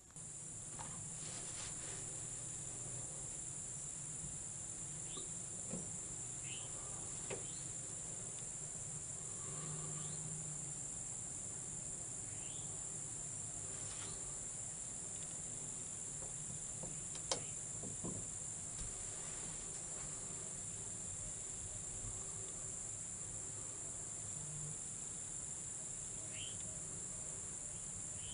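Insects trilling in a steady, high-pitched chorus, with a few short faint chirps and one sharp click about two-thirds of the way through.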